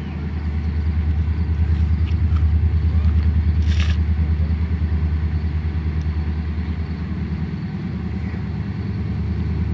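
Diesel locomotive engine heard as a steady, pulsing low rumble as the train approaches slowly, swelling slightly in the first few seconds. A brief hiss comes about four seconds in.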